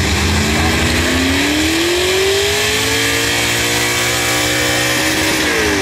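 Pulling truck's engine under load, its pitch climbing steadily for about three seconds, holding, then dipping near the end.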